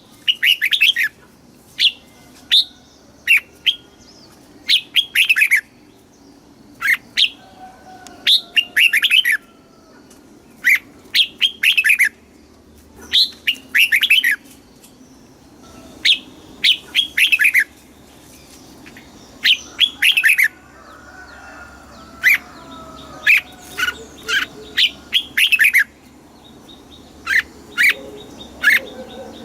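Red-whiskered bulbul singing: short phrases of quick, clear whistled notes, repeated every second or two with brief pauses between.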